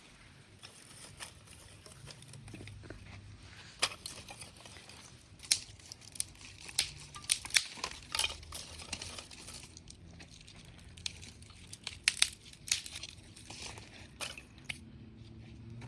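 Irregular crinkling and tearing sounds with scattered sharp clicks, as of something being handled and torn by hand.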